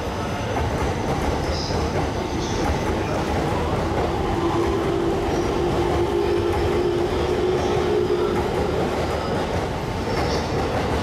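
JR East E231 series commuter train, running on its original unrenewed VVVF inverter, pulling out and gathering speed past the platform, with steady wheel rumble and rail-joint clatter. From about four seconds in, a steady tone from the traction inverter and motors sits over the rumble for about four seconds.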